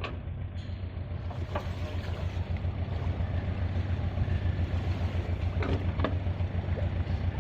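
A steady low motor drone with a fast, even pulsing, under a broad rushing noise, slowly growing louder. A few faint clicks.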